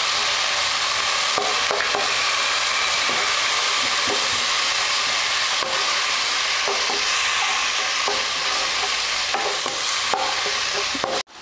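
Sliced onions, green chillies and ginger-garlic paste sizzling in hot oil in a nonstick pan, stirred with a wooden spatula in scraping strokes. A steady frying hiss that breaks off for an instant near the end.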